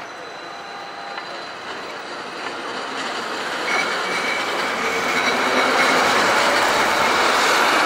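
Modern low-floor electric tram passing close by on street track: its running noise swells from about halfway in and stays loud, with a steady high whine joining as it nears.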